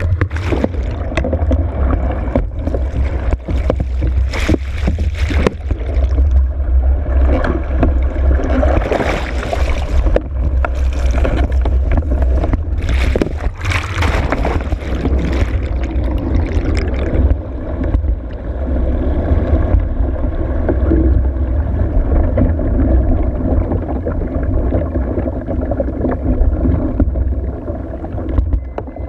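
Water churning and bubbling around a capsized small boat, heard underwater: a low steady rumble throughout, with crackling bubbles over it that thin out about halfway through.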